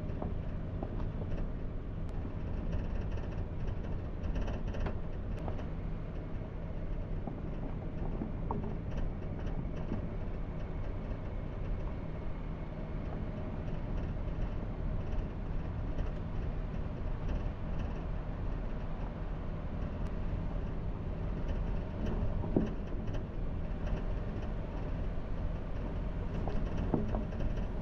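Steady engine and road noise from a car being driven, with a few light knocks.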